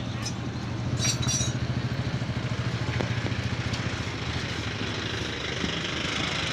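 A small engine running steadily at idle, a low hum with a quick even pulse. A few short high chirps come about a second in.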